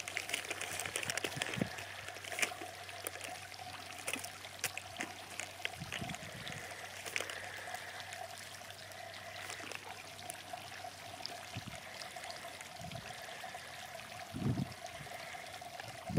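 MRE flameless ration heater fizzing faintly and steadily, reacting weakly in the cold and barely warm, with light crinkling of a plastic ration pouch being handled and small clicks scattered through.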